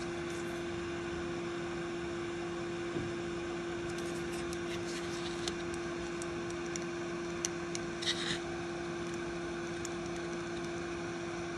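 Steady hum and hiss of running soldering-bench equipment, like a fan motor, with a few faint light taps and a short rustle about eight seconds in.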